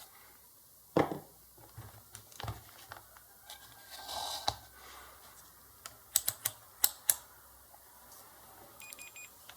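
Multimeter and test probes being handled on a workbench to check a fuse: a thump about a second in, then a quick run of sharp clicks around six to seven seconds in. Near the end comes a short, broken beep, the multimeter's continuity beeper as the probes touch across the fuse.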